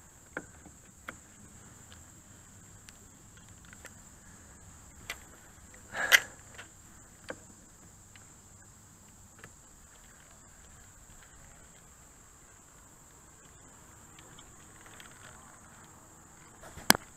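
Steady high-pitched drone of insects, with scattered sharp clicks and knocks; the loudest knocks come about six seconds in and again near the end.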